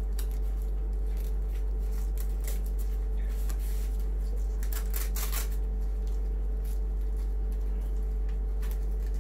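Faint rustling and crinkling of a disposable protective coverall as it is closed up the front and sealed at the neck, in a few short bursts, clearest around the middle. A steady low electrical hum runs underneath and is the loudest sound.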